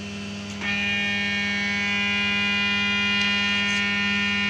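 Samsung SCX-3401 laser printer's drive motor running with a steady pitched whine as it starts a print job. The whine comes up about half a second in, holds an even pitch and cuts off suddenly at the end.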